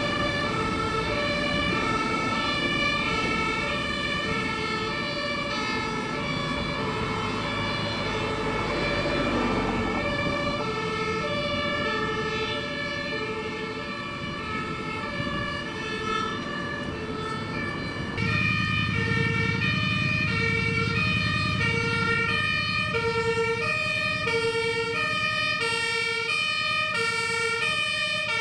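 German two-tone fire engine sirens (Martinshorn) sounding continuously, alternating between a high and a low note, with more than one siren overlapping out of step. About 18 seconds in, the low rumble of a fire truck's engine suddenly grows louder under the sirens.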